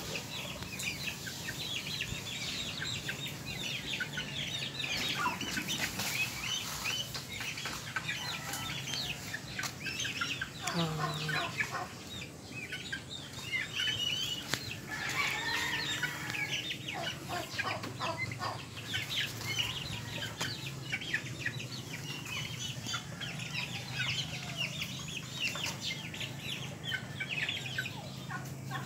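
Many short, high bird calls, one after another throughout, over a low steady hum.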